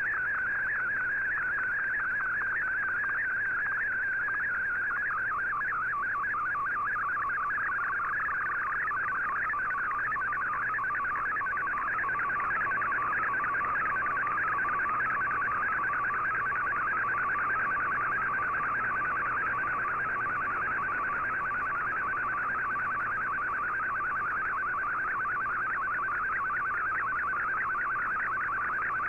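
Shortwave radio broadcast of a digital-mode picture: a continuous, rapidly warbling tone between about 1 and 2 kHz, the picture signal of a colour image being sent line by line in fldigi's MFSK picture mode.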